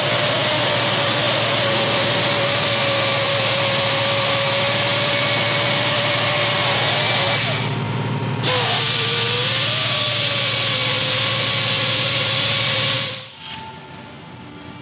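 Handheld grinder running under load with a steady whine. About halfway through it stops for about a second, spins back up to speed, runs on, and then cuts off shortly before the end.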